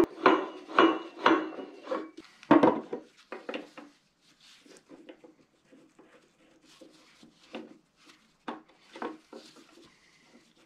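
Metal parts of an old woodworking lathe being handled: a run of loud knocks and clanks in the first four seconds as the pulley is refitted on the headstock, then quieter scraping and light taps as parts are worked along the bed.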